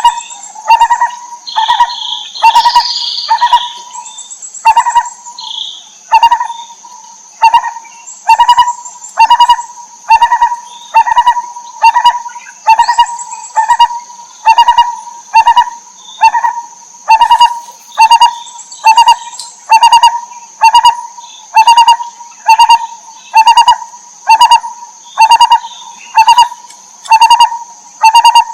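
Lineated barbet calling: one low, mellow note repeated evenly, about three every two seconds, over a steady high whine. A few higher chirps come in the first seconds.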